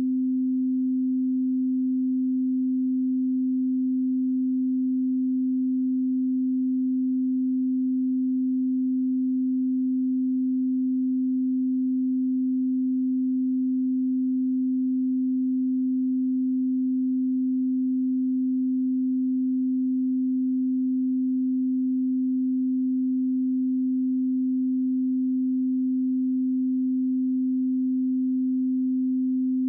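Steady 258 Hz pure sine tone, a single unchanging pitch at constant level: an audio test and calibration signal.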